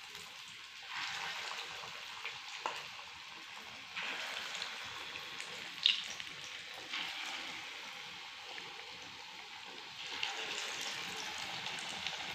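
Spoonfuls of moong dal batter frying in hot oil in a kadhai, a steady sizzle that swells every few seconds as each fresh spoonful goes in. Two sharp clicks stand out.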